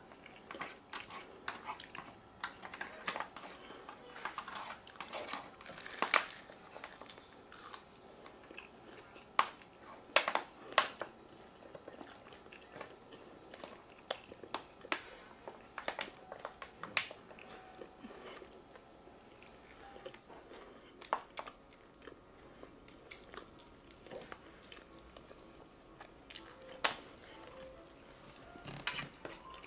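Close-miked chewing of takeout rice and meat, with wet mouth clicks and smacks, and a plastic fork scraping and tapping in an aluminium foil pan. The sharp clicks come irregularly, the loudest around six and ten seconds in.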